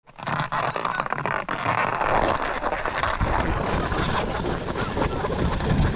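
Skis sliding over packed snow, with irregular clicks and scrapes in the first couple of seconds and wind rumbling on the microphone from about halfway through.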